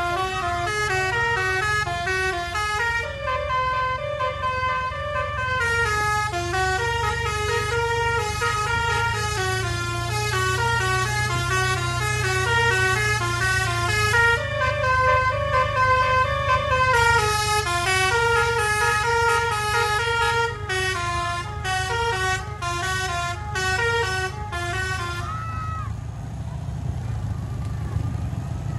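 Bus's multi-tone 'basuri' telolet air horn playing a tune of stepped notes, over a steady low engine rumble. The tune stops about three seconds before the end.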